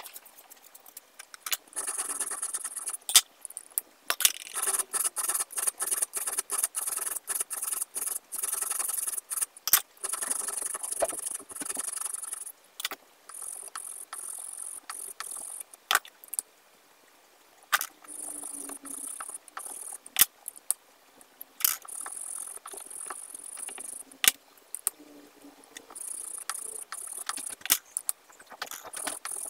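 Small hand file rasping over the base circle of a silver-steel camshaft's exhaust cam held in a filing jig, in spells of quick strokes a few seconds long with short pauses between. Sharp metallic clicks come throughout.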